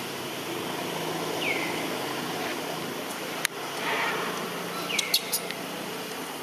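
Steady outdoor background hiss with two short chirps that fall in pitch, one about a second and a half in and one about five seconds in, and a few sharp clicks.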